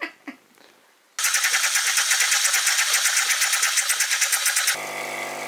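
Bean-to-cup coffee machine frothing milk from its milk carafe into a cup: a loud, fast-rattling hiss starts about a second in and changes near the end to a steadier mechanical hum.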